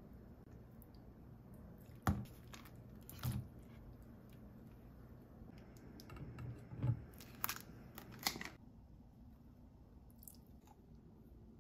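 Food-prep handling noises at a stainless steel mixing bowl: a sharp knock about two seconds in, another a second later, then a cluster of knocks and clinks from about six to eight seconds in.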